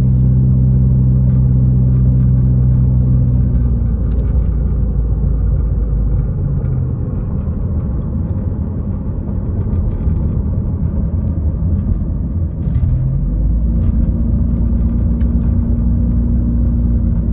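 Car driving, heard from inside the cabin: steady low tyre and road rumble, with a steady low engine hum at the start that fades out after about four seconds and comes back near the end.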